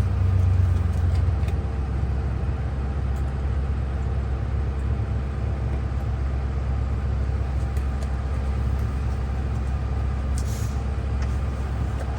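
A Ford 6.0 L V8 diesel engine running steadily with a low drone, swelling slightly about a second in.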